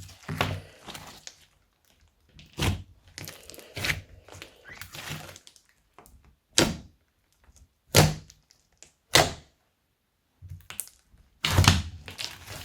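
Slime worked by hand, giving about eight separate sharp pops and crackles a second or more apart.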